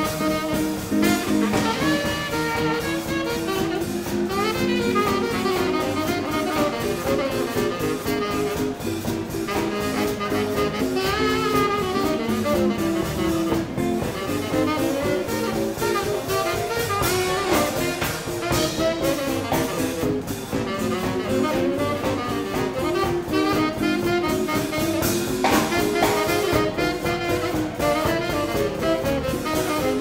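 Live swing band playing, with saxophone and brass over a steady drum kit beat.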